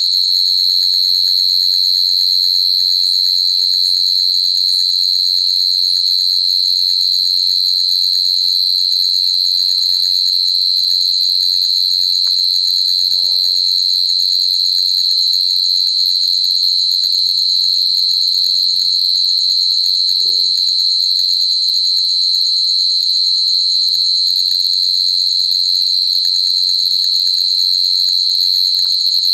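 Crickets trilling in a steady, high-pitched chorus that doesn't let up.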